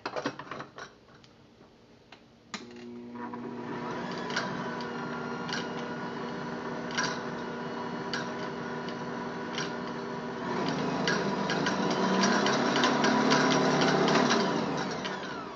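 Ankarsrum stand mixer's motor driving the whisk attachment in an empty plastic bowl: a few clicks as the whisk is seated, then the motor starts a couple of seconds in and runs steadily with a light tick about once a second. It gets louder about two-thirds of the way through as the speed is raised, then winds down near the end.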